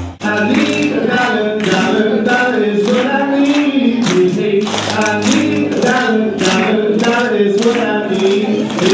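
A song: singing voices over a steady tapping beat of about two taps a second. It starts right after an abrupt cut from louder, bass-heavy music.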